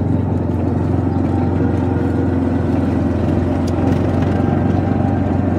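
Motor vehicle engine running steadily, a dense even hum with no change in speed.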